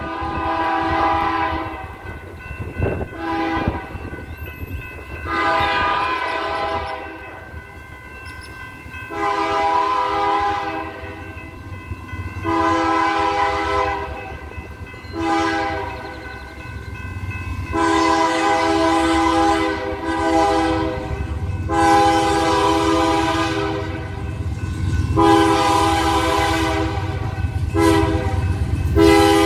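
Locomotive air horn on BNSF 4155 sounding a salute: about a dozen blasts of a several-note chord, some long and some short. Under them runs the steady low rumble of a passing freight train of empty autoracks.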